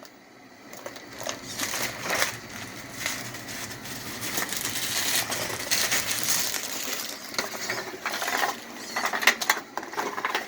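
Danchee Ridgerock RC rock crawler driving over rough ground, its tires and chassis giving off irregular scraping with scattered clicks and knocks.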